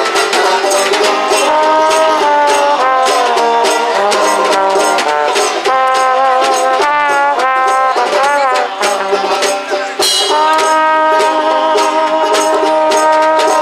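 Street swing band playing, the trombone leading close up over double bass and snare drum. The trombone bends and slides through notes about seven seconds in, then holds one long note near the end.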